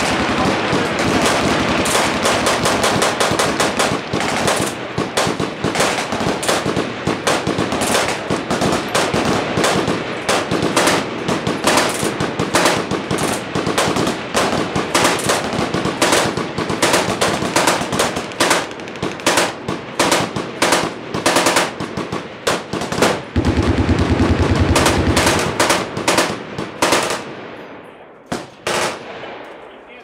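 Many machine guns firing at once from a firing line: dense, overlapping bursts of fully automatic fire with no break. About two-thirds of the way in, one very fast burst runs for a few seconds; then the firing thins to scattered bursts near the end.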